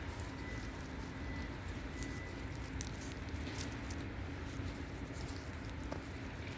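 Wind buffeting the microphone with a steady low rumble, with scattered light crackles and ticks from the forest floor.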